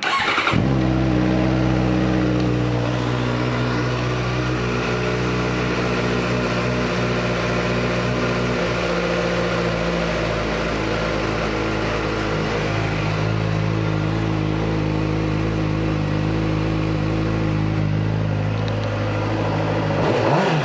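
2015 Suzuki GSX-R600 inline-four engine with a Yoshimura slip-on exhaust starting up and catching right at the beginning, then idling steadily.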